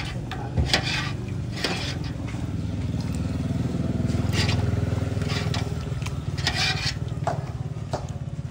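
A motor running with a steady low hum that swells in the middle and eases off, under a string of short splashing hisses as a ladle pours soup from a pot into a bowl.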